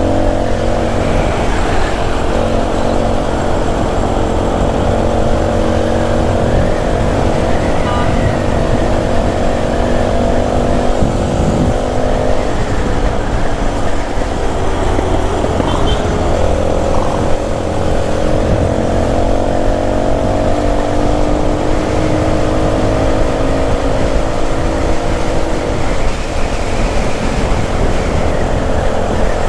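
Motorbike engine running under way, its pitch slowly rising with the throttle, dropping about twelve seconds in and climbing again a few seconds later, over a steady low wind rumble.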